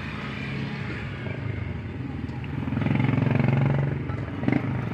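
Engine running steadily. It swells louder for about a second in the middle, and there is a brief knock near the end.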